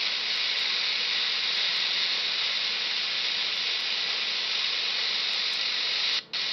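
Radio receiver static: a steady hiss of HF band noise from the speaker, with no signal to be copied. The hiss cuts out very briefly near the end.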